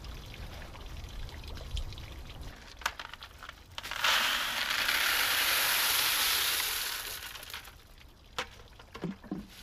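Gravel poured from a plastic bucket into a milk crate around a submerged pond pump, a rushing clatter of small stones that starts about four seconds in and lasts about three seconds. A few separate clicks and knocks of stones come before and after it.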